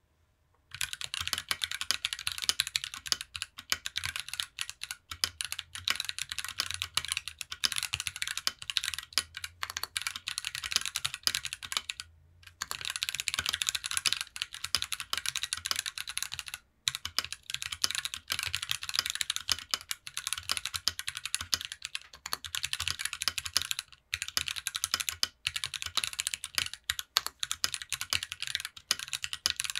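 Continuous fast typing on a mechanical keyboard fitted with stock Kiwi switches, a TOFU60 aluminium case with a brass plate and foam inside, and GMK Delta keycaps. The typing starts just under a second in and pauses briefly twice near the middle.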